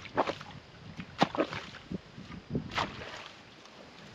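Digging tool chopping and scraping into wet, waterlogged soil while a drainage ditch is dug, a series of irregular sharp strikes with wet sloshing.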